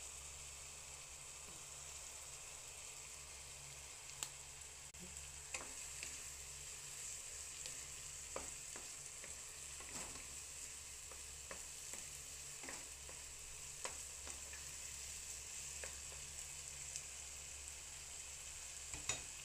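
Ground pork with tomato and onion sizzling in a nonstick frying pan while it is stirred, with scattered sharp taps and scrapes of the utensil against the pan.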